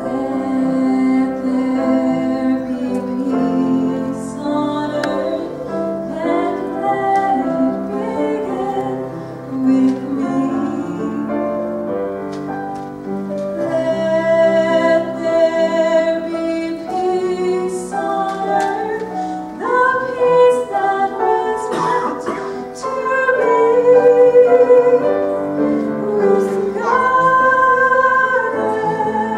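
A woman sings solo through a microphone with grand piano accompaniment. Some notes are held long and waver.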